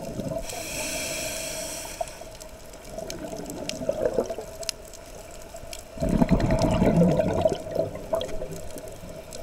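Scuba diver breathing through a regulator underwater: a hissing inhale near the start, then exhaled bubbles rushing loudly about six seconds in, with a smaller burst of bubbles around four seconds. A steady low hum runs underneath.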